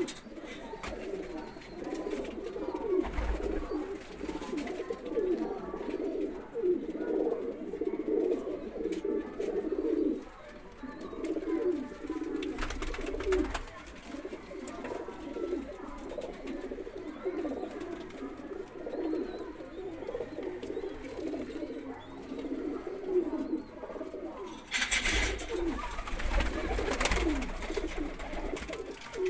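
Domestic pigeons cooing continuously in a loft, several birds overlapping in a low, wavering murmur. A brief rustling noise comes near the end.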